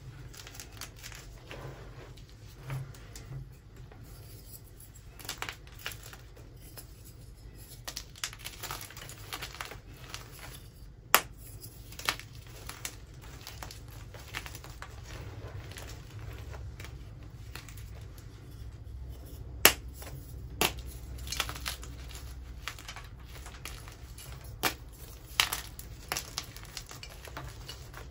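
Hands crushing and crumbling blocks of dyed gym chalk: a steady gritty crunching, with a few sharp snaps as pieces break, the loudest about eleven seconds in and near twenty seconds.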